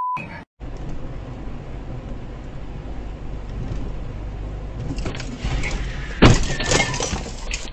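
Dashcam recording of a car driving with steady road noise, then a car crash with a pickup truck about six seconds in: a loud bang followed by about a second of crunching and scraping.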